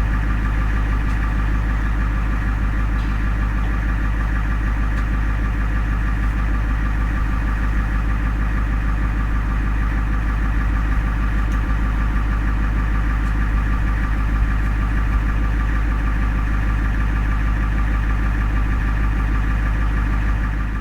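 Ambulance engine idling: a steady low drone with no siren.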